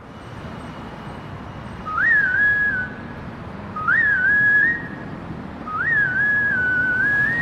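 Whistled melody of a sped-up K-pop song intro: three short phrases, each opening with a quick upward swoop and then holding a slightly wavering pitch, over a soft, hazy backing.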